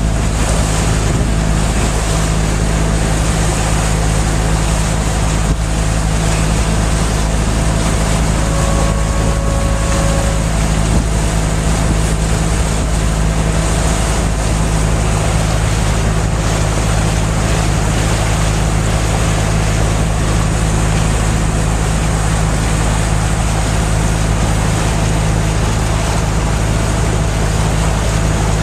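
Passenger boat's engine running steadily under way, a constant low hum mixed with rushing water and wind noise.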